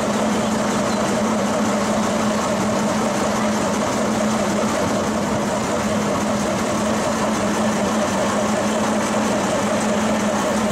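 Köf II small diesel shunting locomotive idling steadily at an even pitch.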